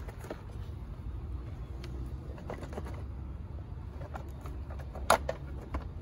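Plastic instrument pod of a Polaris Sportsman ATV being handled and snapped back onto the handlebar: a few light plastic clicks and one sharp click about five seconds in, over a steady low rumble.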